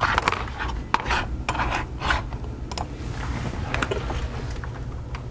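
A series of short rubbing and scraping strokes, about eight in the first four seconds, over a steady low hum: objects being handled and slid on a work surface.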